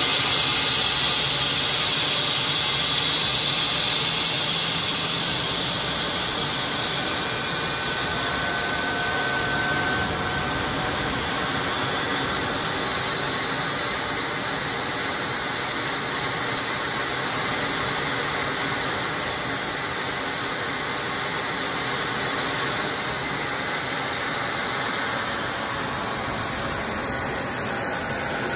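Airbus A319 auxiliary power unit (APU), the small gas turbine in the tail cone, running with a steady rushing exhaust noise and a high whine. The whine rises in pitch over the first dozen seconds and then holds steady as the unit comes up to speed after its start.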